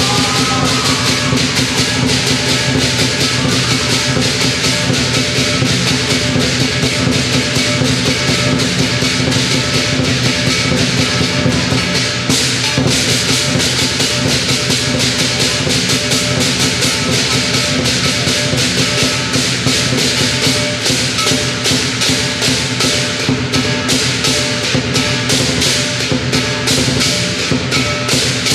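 Southern lion dance percussion: a large lion dance drum beaten fast and continuously, with cymbals clashing on the beat and a ringing gong underneath, driving the lion's routine on the poles.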